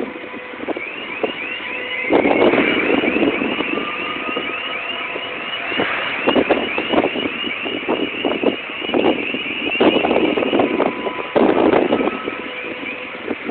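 Electronic warning alarm on container-handling machinery, a short rising chirp repeating about three times a second. It starts about a second in and stops near the end, over irregular bursts of louder noise from the working machinery.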